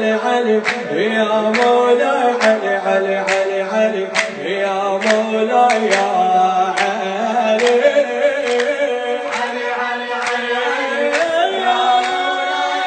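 A man singing an Arabic religious chant into a microphone, holding long ornamented notes, over a steady beat of sharp strikes a little more than once a second.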